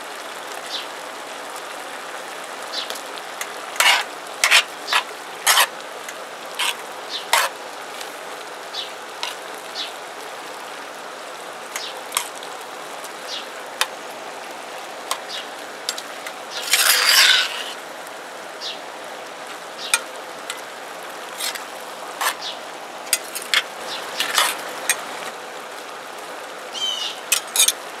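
Metal spoon stirring crawfish tails and corn in a cast-iron Dutch oven, with irregular clicks and scrapes against the pot and one longer scrape about seventeen seconds in, over a steady sizzle of the pot cooking on the burner.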